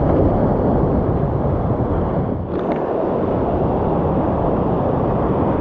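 Whitewater creek rapids rushing loudly and steadily, with a brief dip in level about halfway through.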